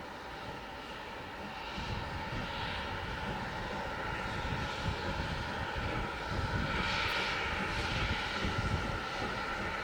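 Steam locomotive working a train, a steady rumble with hissing that grows gradually louder as it draws nearer.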